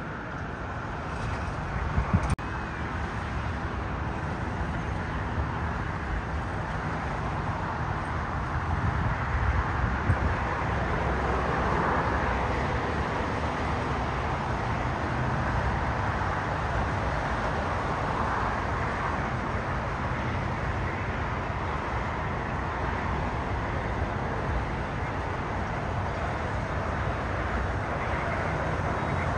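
Airport ambience: a steady low rumble of distant jet aircraft and road traffic, swelling a little around ten seconds in, with one sharp click about two seconds in.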